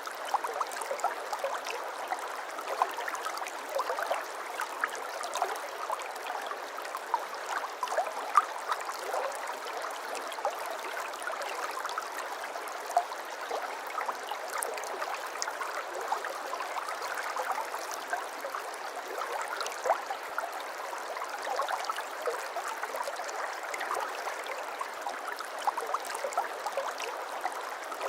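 Water flowing and trickling steadily, a babbling stream full of small plinks and gurgles, with no deep rumble.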